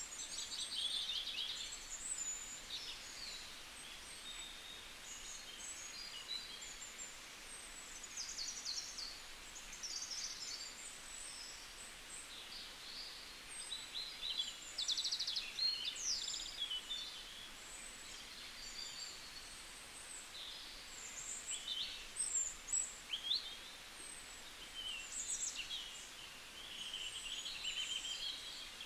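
Many small birds chirping and twittering in quick short calls and trills, over a faint steady hiss.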